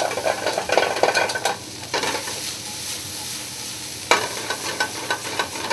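Halibut pieces frying and sizzling in a very hot skillet on a gas range, with metal tongs clicking against the pans during the first second and a half. About four seconds in there is a sudden louder burst of sizzle and clatter.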